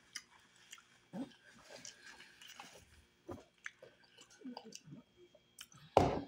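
Close-up mouth sounds of chewing soft, rubbery chitterlings, with small wet clicks and smacks. There is one loud thump near the end.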